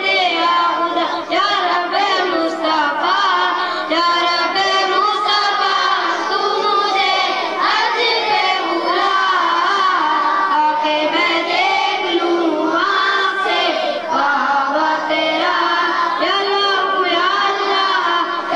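A boy singing a naat, an Urdu devotional poem, solo into a microphone, his amplified voice moving through long, bending held notes without a break.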